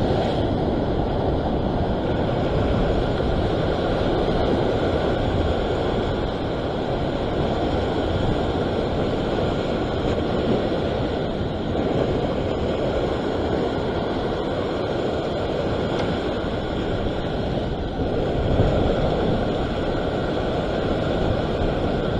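Ocean surf washing over a coastal rock ledge, mixed with wind on the microphone: a steady rushing noise with no distinct events.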